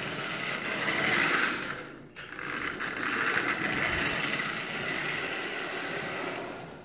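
Marx 999 toy steam locomotive running along the track, its electric motor and gears whirring steadily. The motor has not been run in decades and its brushes are still dirty. The sound dips briefly about two seconds in, then picks up again.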